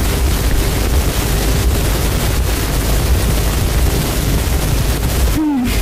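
A loud, steady rushing noise with a deep rumble underneath, breaking off near the end as a voice begins.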